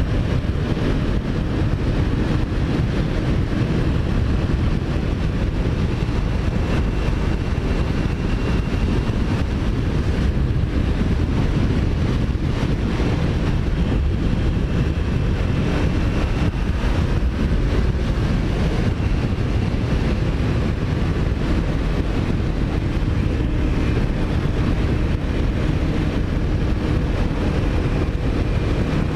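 Steady wind rush over the microphone of a moving motorcycle, with the Kawasaki Ninja 400's engine running beneath it at an even pace.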